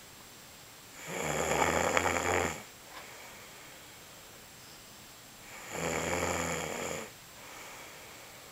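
A man snoring: two loud, low buzzing snores, each about a second and a half long and about four seconds apart, with softer breaths between them.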